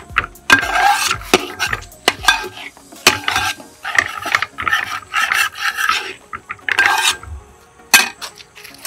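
Long metal ladle scraping around an aluminium pot, stirring a thick fried-onion and spice masala in repeated rasping strokes. The strokes stop about seven seconds in, followed a second later by one sharp knock.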